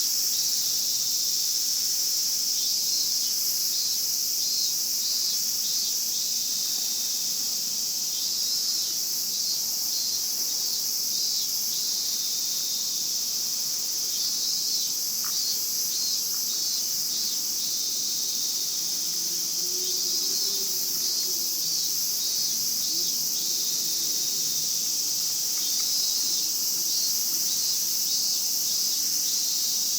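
Chorus of Japanese cicadas: a steady, high-pitched shrill drone, with pulsing calls from some of the insects coming and going over it.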